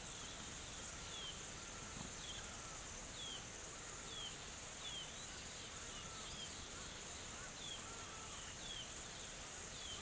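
Bush ambience: a steady high insect buzz, with a bird repeating short falling chirps every second or so and fainter lower calls beneath.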